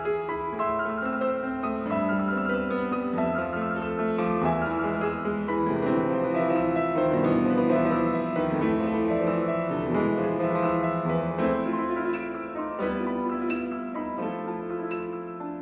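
Grand piano played solo in a classical piece: a dense run of many notes that swells to its loudest about halfway through, then eases off toward the end.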